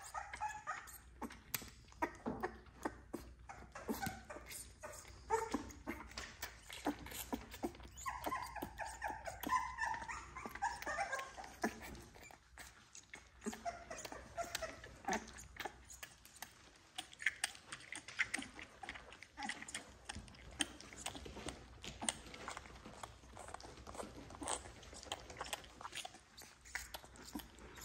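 Newborn XL American Bully puppies whimpering and squeaking in short, wavering cries: a few near the start, a longer run about eight to eleven seconds in, and more a few seconds later. Scattered faint clicks and rustles run between the cries.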